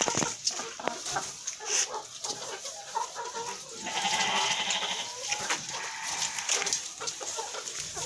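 A flock of brown laying hens clucking and calling in their house, with scattered short calls and rustling and a longer call about four seconds in.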